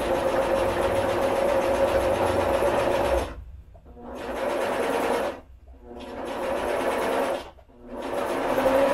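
Singer electric sewing machine stitching fabric, its motor and needle running in a steady hum. It runs unbroken for about three seconds, then goes in shorter runs with three brief stops, picking up speed again after each one.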